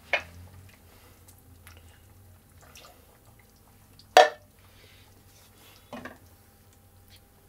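Kitchen utensils knocking against a cooking pot: three sharp clinks, the loudest about four seconds in.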